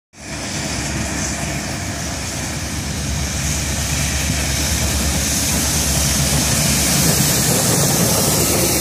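Excursion train led by Southern Railway 4501, a 2-8-2 steam locomotive, approaching and drawing alongside. A steady rumble grows gradually louder as it nears.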